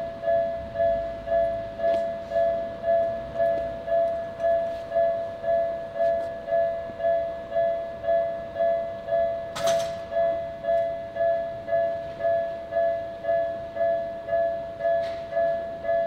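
Japanese railway level-crossing alarm ringing: a two-tone electronic ding repeated about twice a second while the barrier arms lower, warning of an approaching train. A single sharp click sounds about ten seconds in.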